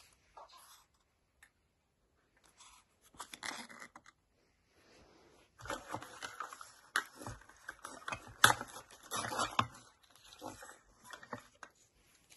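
Hands handling a Zuru 5 Surprise Mini Brands capsule: plastic wrapping tearing and crinkling and the hard plastic capsule halves clicking and knocking, in irregular bursts. The handling is busiest in the middle, with one sharp click about eight seconds in.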